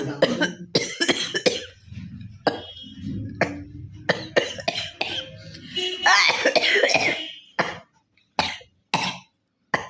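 A woman coughing hard and repeatedly, hawking and forcefully clearing phlegm from her throat. Rapid coughs come in a close run, a longer strained rasping hawk follows about six seconds in, and a few single coughs end it.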